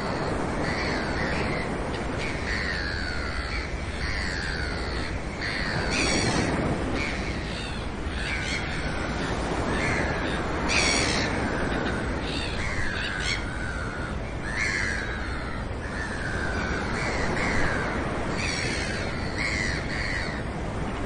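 Birds calling over and over: short calls that fall in pitch, about one a second, sometimes overlapping, over steady background noise.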